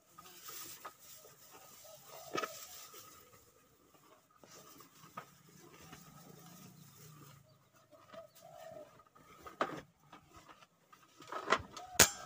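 Quiet outdoor background with faint bird calls and scattered small clicks, then a sharp crack near the end: a shot from a bullpup PCP air rifle.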